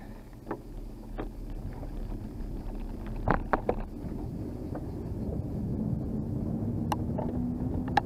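Wind buffeting the camera microphone and rolling road noise on a downhill descent, growing louder as speed builds. A low hum creeps slowly up in pitch in the second half, and a few sharp clicks and knocks from bumps come through, the loudest about three seconds in.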